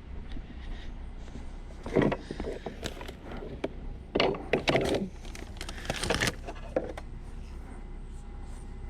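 Junk being handled through a curbside pile: a few rattling, clattering knocks about two, four and six seconds in, over a low steady hum.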